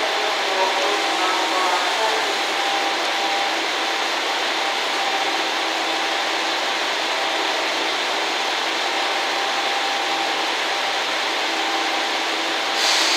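Tosa Kuroshio Railway 2000-series diesel railcar pulling slowly into the platform and stopping, a steady noisy hiss from its engines and running gear with faint steady tones. There is a brief louder hiss near the end.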